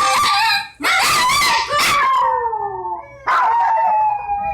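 A dog howling in two long, drawn-out calls, the way a 'talking' dog sounds as it answers its owner. The first call slides down in pitch; the second, starting about three seconds in, is held almost level. The howling is attention-seeking.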